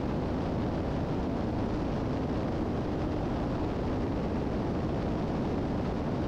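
Steady drone of the twin-engine 1981 Piper Seneca III's engines and propellers in cruise, heard inside the cabin. The low, even noise neither rises nor falls.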